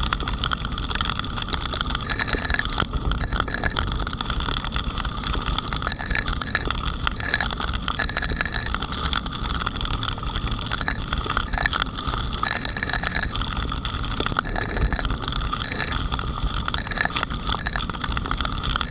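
Steady rushing noise of wind and heavy rain striking a camera mounted on the outside of a moving car, over a low rumble of the car and its tyres on the wet road.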